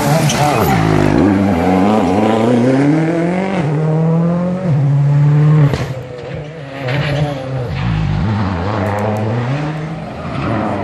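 Rally car engine revving hard at full throttle, its pitch climbing and dropping with gear changes. It falls away about halfway through, then builds again toward the end.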